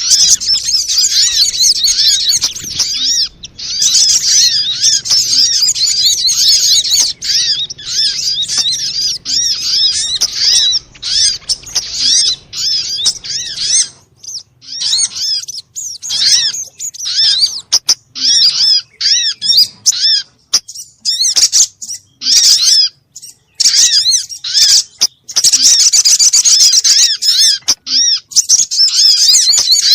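Crimson sunbird (sogon) calling: dense runs of rapid, high-pitched chirps and trills, broken by short pauses in the middle stretch. It is a lure recording of the bird's calls.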